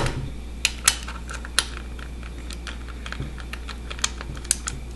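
Irregular light metallic clicks and ticks from the cam chain and chain tensioner of an Audi 1.8T AEB cylinder head as the camshaft is turned by hand, with a few sharper clicks scattered through. The chain seems to jump and the tensioner to rise and slam down, which the owner is unsure is normal.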